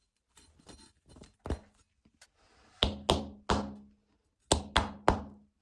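A series of sharp knocks: a single one, then two quick groups of three, each knock dying away briefly, with a faint steady hum under the later ones.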